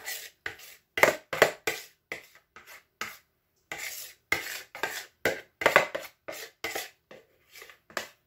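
Spoon scraping and tapping against a container while spooning out the last of a thick pudding: a string of short, irregular scrapes and knocks, about two or three a second, the loudest ones about a second in and near six seconds.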